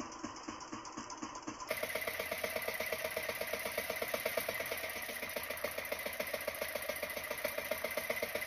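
Outrigger fishing boat's engine running steadily with a fast, even putter, louder from a little under two seconds in.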